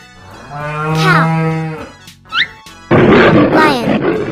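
A cow mooing once, about a second and a half long, then a short rising chirp. From about three seconds in, a loud, rough roar takes over.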